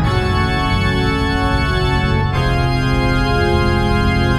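Background music of slow, sustained chords, with a chord change about two seconds in.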